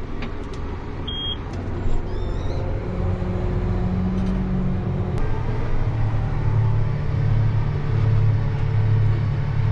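John Deere 8270R tractor's six-cylinder diesel engine running, heard from inside the cab as the tractor moves off with a mounted cultivator. Its engine note shifts a couple of times, about three and five seconds in.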